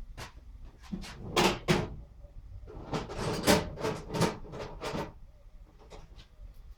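Knocks, clicks and clattering of tools being handled and rummaged through, with two sharp knocks near the start and a busier burst of rattling in the middle.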